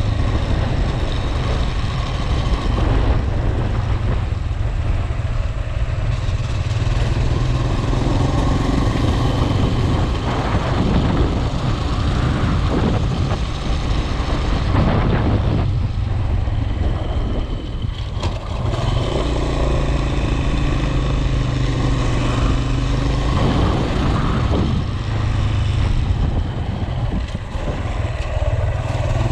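Road vehicle on the move: a steady heavy rumble of engine, road and wind noise, with the engine's pitch rising and falling a little at times.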